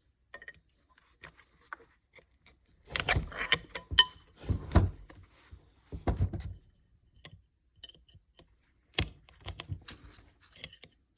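Clicks, knocks and scraping of a 3D-printed PETG-CF flanged ring and a quick-disconnect hose connector being worked loose by hand. The clicks come in irregular clusters, busiest from about three to five seconds in and again around six seconds, with a sharp knock near nine seconds.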